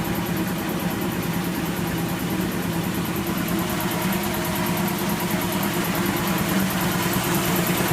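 Old Kellogg-American piston air compressor, driven by a three-phase electric motor, running steadily with a steady hum and a fast even pulse of piston strokes. It grows slightly louder near the end.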